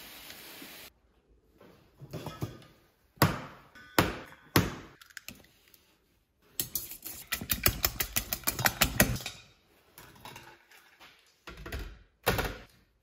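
Panko breadcrumbs poured onto a stainless-steel tray, a steady hiss that stops about a second in. Then a few sharp knocks on a steel bowl, and a fast run of clinking metal taps against the stainless-steel bowl as the eggs are handled, with a couple more knocks near the end.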